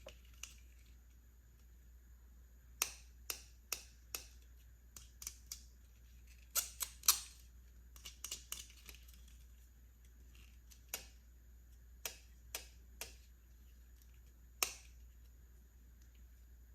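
Irregular sharp clicks and taps of small plastic toy pieces being handled and set down. A quick run of them comes a few seconds in, and a few more come singly later.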